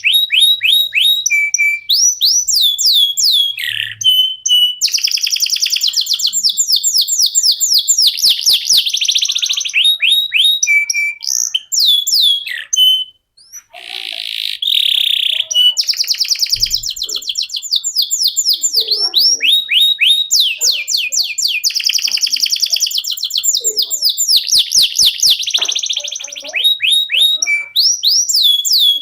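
Canary singing a long, nearly unbroken song of rapid trills and runs of quickly repeated sweeping whistled notes, pausing briefly about thirteen seconds in.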